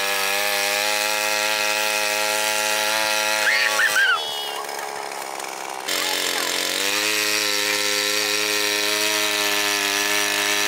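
Small engine of a portable fire pump running steadily, driving water out to a hose. About four seconds in the engine slows, and it comes back up to speed a couple of seconds later.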